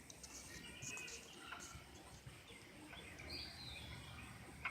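Faint outdoor ambience with a few soft, distant bird chirps.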